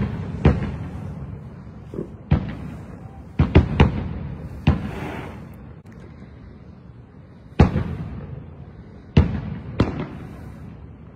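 Aerial fireworks shells bursting: about nine sharp bangs at irregular intervals, some in quick clusters, each trailing off in a rolling echo.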